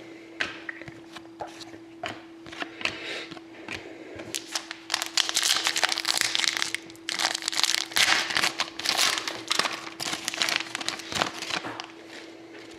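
Trading card packs being handled: wrapper crinkling and cards rustling and tapping in irregular bursts, busiest in the middle of the stretch, over a faint steady hum.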